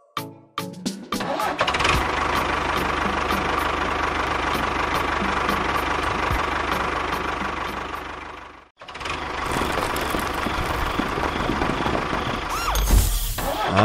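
Tractor engine sound: a few quick clicks as it starts, then running steadily. It cuts out briefly about nine seconds in, starts again, and runs louder and deeper near the end.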